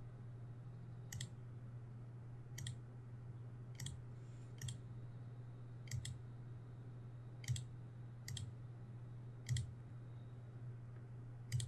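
Computer mouse button clicking: about nine single clicks, spaced irregularly a second or so apart, over a steady low hum.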